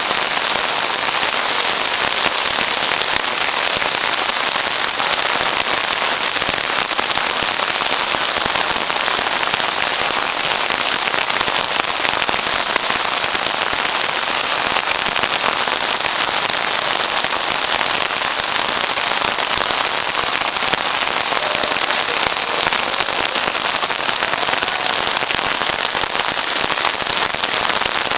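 Heavy monsoon rain falling in a steady downpour, a dense unbroken hiss of rain on rooftops and flooded ground.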